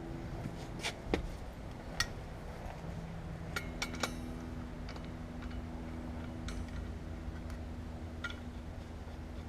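Scattered light metallic clinks and taps, about eight in all, over a steady low hum with a few held tones.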